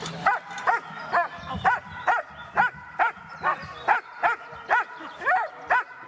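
A dog barking over and over in a steady rapid run, about two barks a second, each bark rising and falling in pitch.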